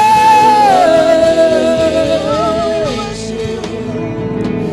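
Worship song: a singer holds a long note that slides down about a second in and then holds a lower note, over steady instrumental backing that carries on alone for the last couple of seconds.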